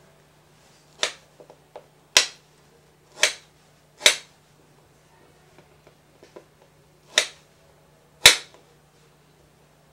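Kitchen knife cutting through mango flesh and striking a plastic cutting board: six sharp knocks, four about a second apart, then a pause, then two more.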